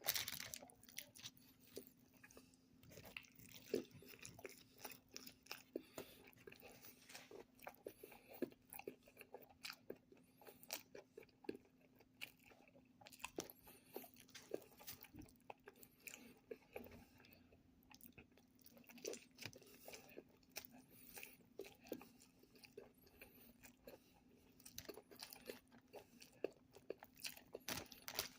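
Close-miked chewing and biting of a fast-food hamburger: irregular soft crunches and mouth clicks, over a faint steady hum.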